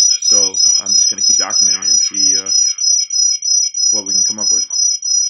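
A loud, high-pitched cricket-like chirping, two close tones pulsing evenly about four times a second, of unknown origin. The recorder cannot identify it and wonders whether something coming into the house causes it.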